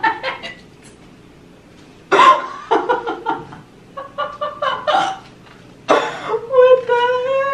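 Human voice: bursts of laughter and short exclamations, ending in one long drawn-out vocal note that rises slightly.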